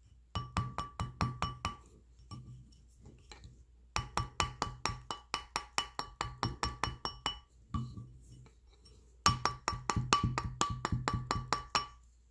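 Rawhide mallet lightly tapping a copper wire coil on a steel ring mandrel, in three quick runs of about five taps a second, each tap making a short metallic ring. The light tapping rounds and work-hardens the wire without marring it.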